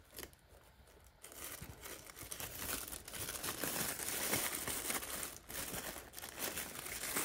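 Tissue-paper gift wrapping crinkling and rustling as it is handled and the ribbon undone, starting about a second in and going on as an uneven crackle.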